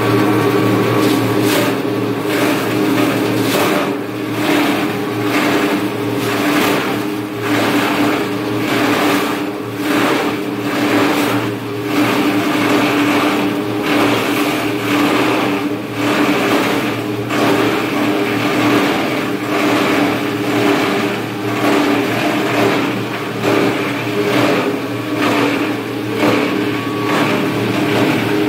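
Belt-driven plastic grinder running with a steady hum while its rotor blades chop green plastic strapping into granules, giving irregular sharp cracks and crunches, several a second, over the hum.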